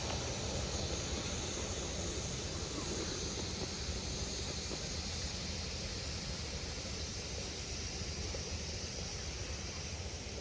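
Steady hiss of steam from a miniature steam locomotive, over a low, unsteady rumble.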